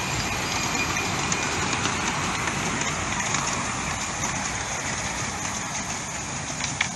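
Ride-on miniature steam train, locomotive Southern 850, running along the track with a steady hissing, rushing noise and a single click near the end.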